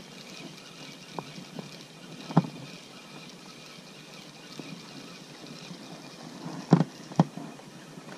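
Several short, dull knocks of gear handled in an inflatable boat, over a faint steady hiss of wind and water. Three are sharper: one about two seconds in and two close together near the end.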